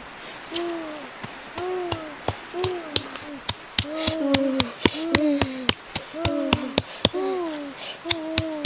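Pestle pounding in a small mortar, sharp knocks two or three a second, crushing chili and other ingredients. A repeated hooting call, about once a second, sounds behind it.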